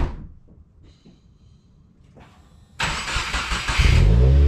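A sharp click, then a couple of seconds of quiet. Next the starter cranks for about a second, and the 2016 Subaru WRX's turbocharged 2.0-litre flat-four catches, its revs rising as it settles. The exhaust runs a stock header, a Cobb catted J-pipe and a Cobb titanium catback.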